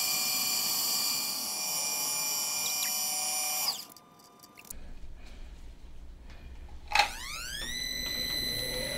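Metal lathe spindle running with a steady gear whine, shutting off about three and a half seconds in. After a short pause there is a click and the lathe starts again, its whine rising in pitch as it spins up, then holding steady.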